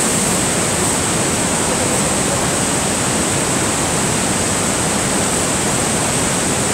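Steady, unbroken rush of Niagara Falls' water, falling and churning white at the base of the falls.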